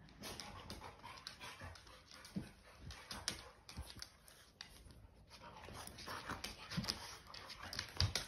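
A puppy and an older dog playing: scuffling with scattered thumps and clicks of paws on a hardwood floor.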